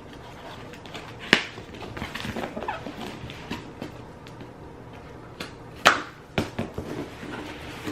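A package being handled and opened by hand: rustling and small clicks, with two sharp knocks about a second in and near six seconds in.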